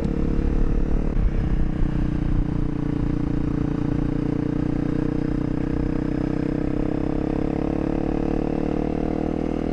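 Honda CRF250L's single-cylinder engine running at a steady cruise while ridden on a gravel road. Its level is a little uneven for the first couple of seconds, then holds even.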